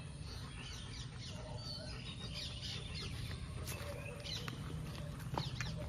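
Small birds chirping and twittering, many short quick calls, over a low steady hum.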